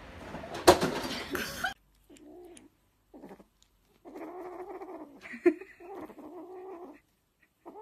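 A burst of loud rustling and clatter that cuts off abruptly, then a cat calling: a few short cries, then a long drawn-out yowl lasting about three seconds.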